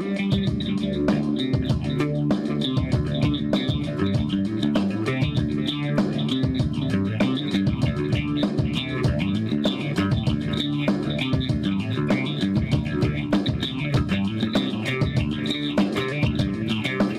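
Background music: a guitar and bass instrumental with a steady beat.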